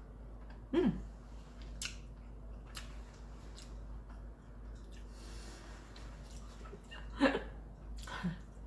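A woman eating quietly: a short 'mm' hum about a second in, faint clicks and breaths while chewing, and more brief murmured voice sounds near the end.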